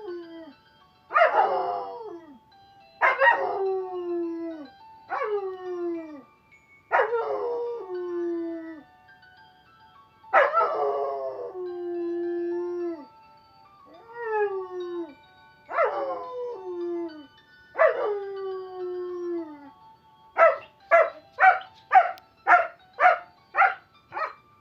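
Dog howling in a series of drawn-out calls about two seconds apart, each sliding down in pitch and then holding on a low note. Near the end it switches to a quick run of about eight short yelps, roughly two a second.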